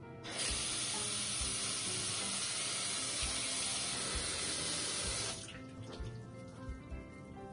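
Bathroom sink tap running water into the basin: a steady rush that starts just after the beginning and cuts off about five seconds in, with music underneath.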